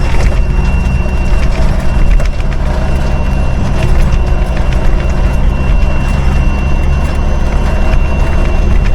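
5-ton military truck's engine running steadily in a low gear on a steep downhill, holding the truck back by engine braking, with scattered rattles and knocks from the truck over a rough road.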